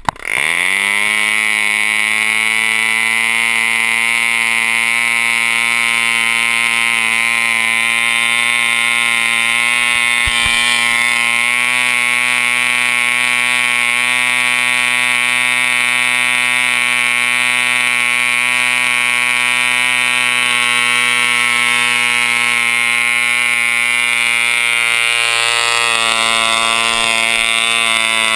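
A Super 60 two-stroke model airplane glow engine, running on nitro fuel, catches and climbs in pitch within half a second, then runs at a steady, high-pitched buzz. The pitch dips briefly near the end.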